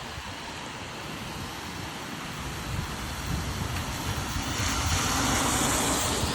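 Steady rain hiss with wind rumbling on the microphone; a car's tyres on the wet road swell into a louder hiss over the last two seconds.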